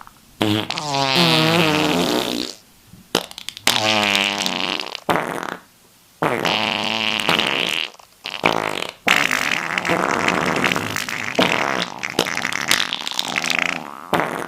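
A run of fart sound effects, one after another with short gaps: the first ones drawn out with a wobbling pitch, the later ones noisier and sputtering, the last lasting about five seconds.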